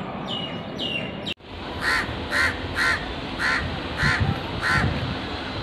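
A bird gives six harsh calls, about two a second, over a steady outdoor background noise. Before them, near the start, come two short falling chirps.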